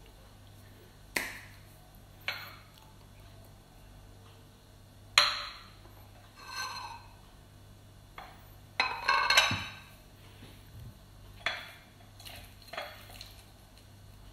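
Scattered short clicks and knocks of a ceramic plate and tableware being handled and set down on a hard tabletop, the loudest cluster about nine seconds in, over a faint low hum.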